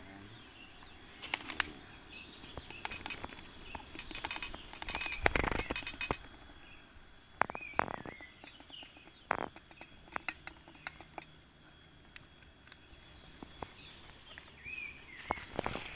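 Scattered clicks and knocks of camping gear being handled, loudest about five seconds in, with birds chirping now and then in the background.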